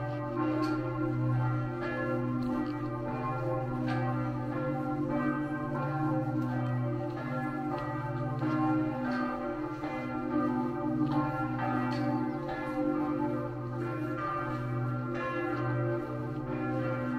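Bells ringing, struck about once a second, each strike ringing on into a steady mass of overlapping tones.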